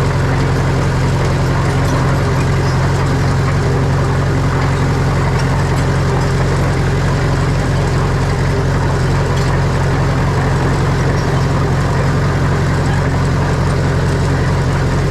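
Heavy diesel engine of earthmoving machinery running steadily at a constant pitch, with a deep hum and no revving.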